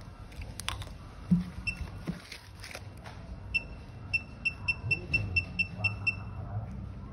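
Handling clicks as a phone display's flex cable is seated in an LCD tester board, then the tester gives a run of about ten short high beeps, roughly four a second, as the screen switches test patterns.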